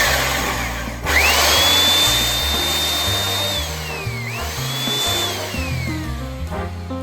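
Electric drill run twice. Each time the motor whine rises, holds steady, then winds down, with a grinding noise as it works the wood of a branch being bored for a duck call. Background music plays underneath.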